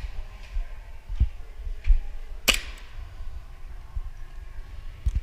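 A single sharp snap about two and a half seconds in, with a few fainter clicks over a steady low rumble.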